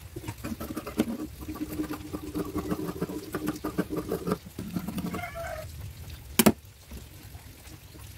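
Scissors snipping through satin fabric, with the fabric rustling and crackling under the blades, then one sharp knock about six and a half seconds in.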